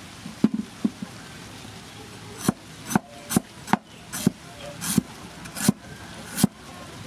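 Cleaver slicing a galangal root on a wooden chopping block, each cut ending in a sharp knock of the blade on the wood. There are three quick cuts in the first second, then a pause, then a steady run of cuts about one every half second.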